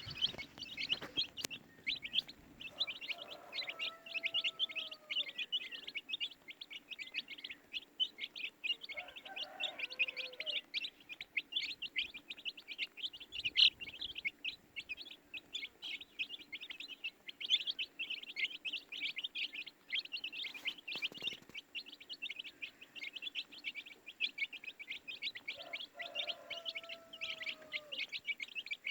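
A brood of baby chicks peeping continuously: a dense stream of short, high chirps. Three times, about three seconds in, around nine seconds in and near the end, a lower, drawn-out call with a falling tail sounds beneath them.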